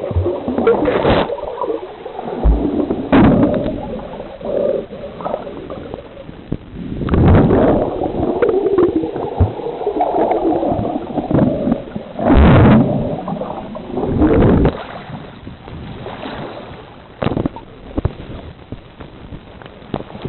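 Sea water sloshing and gurgling around the camera, with irregular splashes about a second in, around 3 s, 7–8 s, 12 s, 14 s and 17 s.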